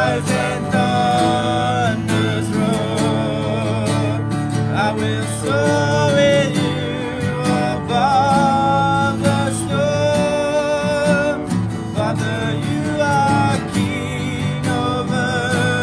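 Acoustic guitar playing a worship song, with a voice singing a held, wavering melody over it.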